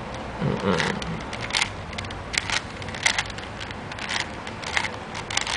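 Plastic 4x4x4 Rubik's cube being turned by hand: short scratchy clicks of the layers snapping round, irregularly about once or twice a second, with a brief handling rustle about half a second in.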